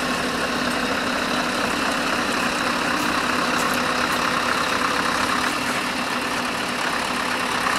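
Heavy truck's diesel engine running steadily at low speed as the 25-metre truck-and-trailer combination moves slowly.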